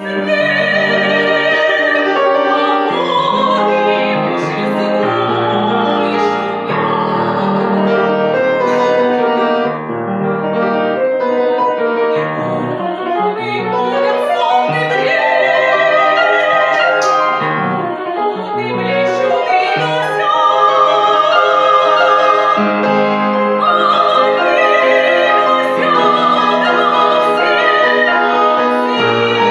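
Classical soprano singing with vibrato over piano accompaniment, a live chamber performance.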